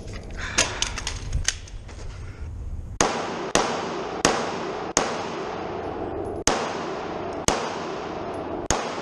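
Glock 34 Gen 5 9mm pistol firing on a shooting stage: seven loud shots at uneven intervals, starting about three seconds in and spread over about six seconds, each with a short echo. A few fainter sharp cracks come in the first two seconds.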